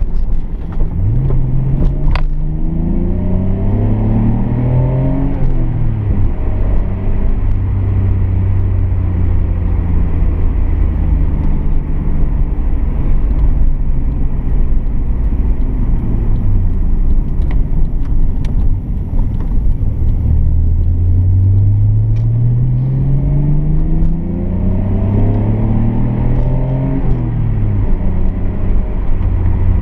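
1990 Nissan Skyline R32 GT-R's twin-turbo straight-six on a test drive: the engine pulls up through the revs about a second in, drops back and cruises steadily, then pulls up through the revs again about twenty seconds in before easing off.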